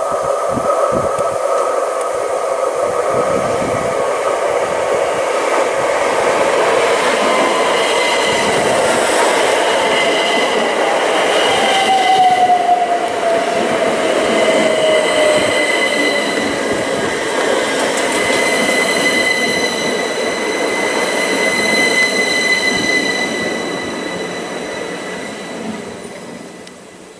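A multiple-unit passenger train passing close by at speed, a loud steady rush of wheels on rail with a high whine, and a few wheel knocks in the first seconds. A tone falls in pitch about halfway through, and the sound fades near the end as the train runs away.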